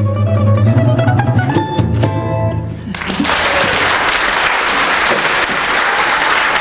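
A small balalaika and a contrabass balalaika play the closing bars of a tune, the contrabass's deep plucked bass under quick strummed notes, ending on a ringing chord. About three seconds in, an audience breaks into applause that carries on.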